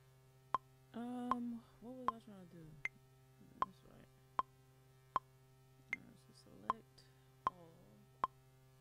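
Metronome clicking steadily at about 78 beats a minute, a higher tick on every fourth beat, with a faint voice coming and going between the clicks.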